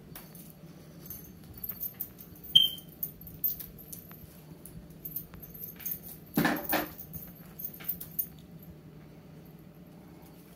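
Cat leaping and landing on a tile floor: scattered light taps and clicks of paws and play, a short high ping about two and a half seconds in, and a louder thud-like burst about six and a half seconds in.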